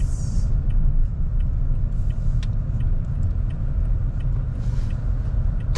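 Car driven slowly, heard from inside the cabin: a steady low rumble of engine and tyres, with faint ticks now and then and a sharp click at the end.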